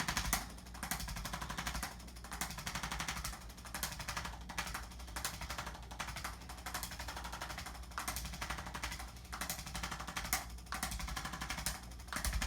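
Chiropractic adjusting instrument tapping along the back in fast runs of clicks, pausing briefly between bursts. It is used to help realign the back and loosen it before a manual adjustment.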